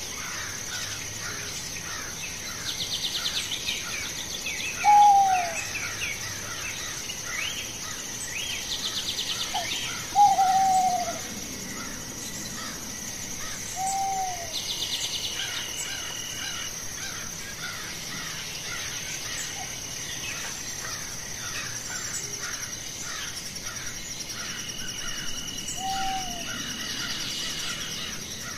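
Outdoor ambience of birds calling: short, low falling notes every few seconds, loudest about five and ten seconds in, over a busy chatter of quick small chirps and a few buzzy trills, with a steady high-pitched drone beneath.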